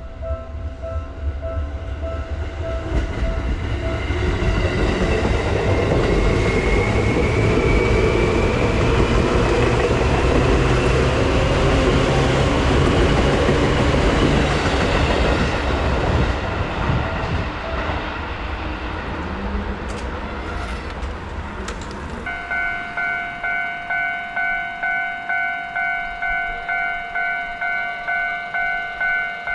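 A level crossing's warning bell rings in a steady beat while a train passes close by, its wheels and running gear rumbling loudly for about ten seconds under a high whine that rises and then falls. After the train has gone, about two-thirds of the way in, a louder, brighter crossing bell starts ringing about twice a second.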